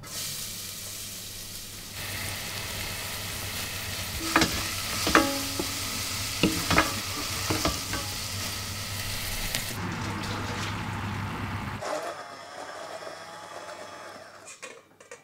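Morel mushrooms sizzling in a copper pan, with several sharp knocks of a utensil against the pan around the middle. The sizzle fades out about two-thirds of the way through.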